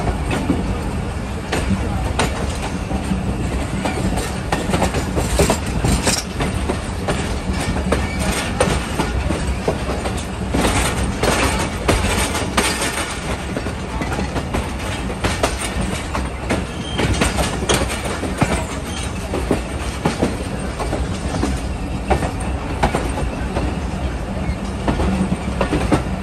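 Passenger train coach running over jointed track and yard pointwork: a steady rumble of wheels on rail with irregular clanks and clicks as the wheels cross joints and crossings. It turns harsher and brighter for a few seconds about ten seconds in.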